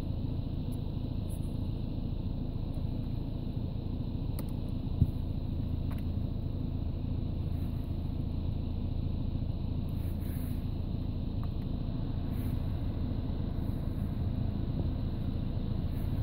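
Steady low rumble inside a car with the engine running and the dashboard ventilation fan blowing. There is one light knock about five seconds in.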